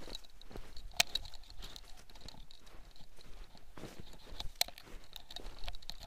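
Footsteps crunching in packed snow at a walking pace, uneven and irregular, with a couple of sharper clicks.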